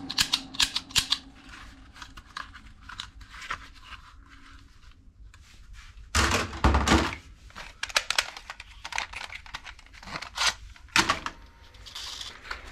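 Plastic toy guns being handled in a heap of toys: a quick run of clicks at the start, scattered clicks and rattles, and a louder clatter with a thud about six seconds in as one is set down among the others.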